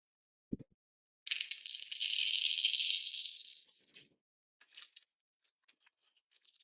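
Container of tiny M2 metal nuts rattling for nearly three seconds, a dense high-pitched jingle. A single low thump comes just before it, and a few light clicks follow.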